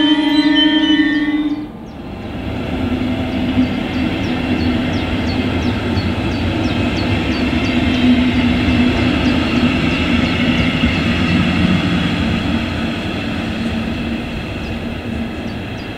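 A train horn holds one steady note and cuts off abruptly under two seconds in. Then a double-deck regional train hauled by an electric locomotive rumbles along the track with a steady hum and a regular light clicking of wheels, easing off toward the end.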